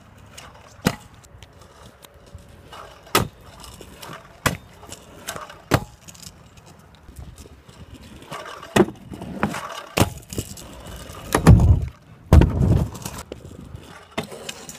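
Stunt scooter clattering on rough asphalt during tailwhip tries: a series of sharp knocks from the deck and wheels hitting the ground, a second or three apart, with the small wheels rolling in between. Two heavier, longer thuds come about three-quarters of the way through.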